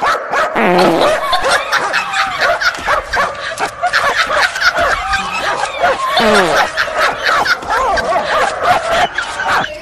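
Animal calls: many short, high yelping cries overlapping one another without a break, with scattered clicks.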